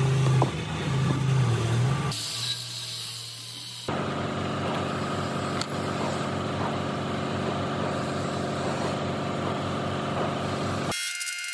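A steady mechanical hum, like an engine running, broken by abrupt cuts about two and four seconds in, with its tone changing at each cut.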